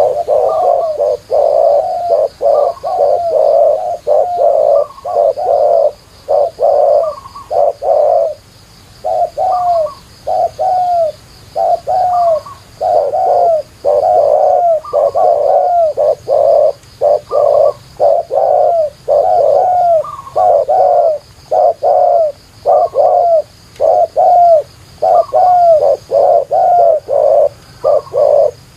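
Spotted doves cooing: a long run of short coos, more than one a second, starting suddenly and going on without a break.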